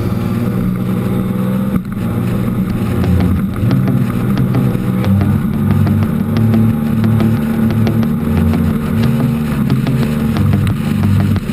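Yamaha outboard motor pushing a Phantom 21 speedboat along at speed, running steadily.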